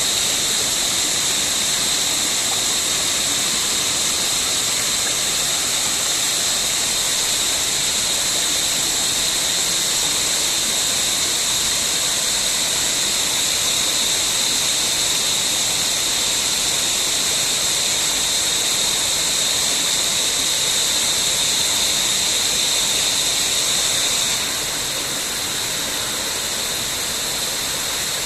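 Steady rushing of a jungle waterfall heard from close by, with a high, steady whine over it that weakens near the end.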